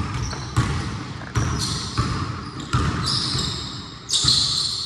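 Basketball being dribbled and bounced on a gym floor during a pickup game: several irregularly spaced thuds, each with a bright, ringing tail.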